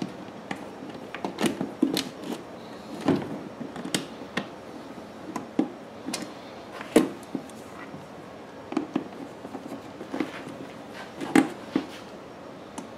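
Scattered light clicks and taps of a screwdriver and small parts handled against a generator's plastic control panel, irregular, with two sharper knocks about seven and eleven seconds in.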